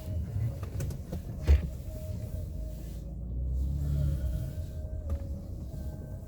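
Wind buffeting the microphone, an uneven low rumble, with one sharp knock about a second and a half in.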